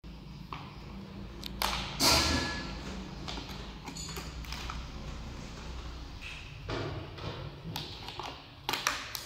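Handling noises from plastic snack and noodle packets: a few short, sharp crinkles and knocks, the loudest about two seconds in, over a low steady hum.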